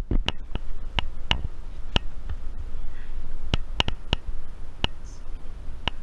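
Close handling noise: about a dozen sharp clicks and taps at irregular intervals over a low rumble, as a plastic device is handled right at the microphone.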